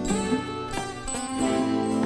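A band playing an instrumental passage led by plucked string instruments, with sharp note attacks.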